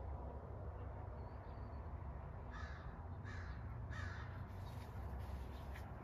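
A 44-inch Hampton Bay Carousel 2 ceiling fan running steadily with a low hum. In the middle, a bird gives three short, harsh, caw-like calls, each about two thirds of a second apart.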